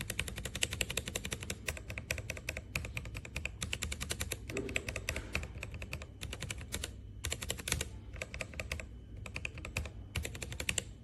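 Mechanical keyboard with Gateron Ink Black v2 linear switches being typed on fast: a dense, steady stream of keystrokes, broken by a couple of brief pauses in the second half.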